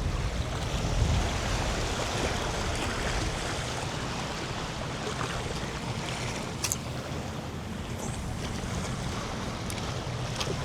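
Wind buffeting the microphone over the sound of small waves washing against a bay shoreline, with a couple of faint clicks in the second half.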